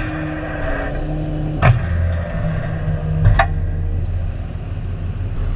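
Tow truck's engine idling steadily, with two sharp clicks about a second and a half apart.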